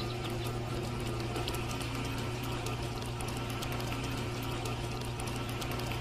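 Small electric motor of a miniature toy concrete mixer running steadily, a constant hum with a light, fast rattle of its drive.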